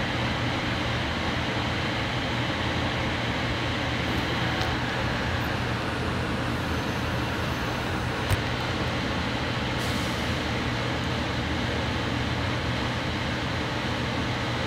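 Steady running noise of a driverless AirTrain JFK car (Bombardier ART 200) heard from inside while it travels along the guideway: wheel and track noise over a low hum. A single sharp click comes a little past halfway.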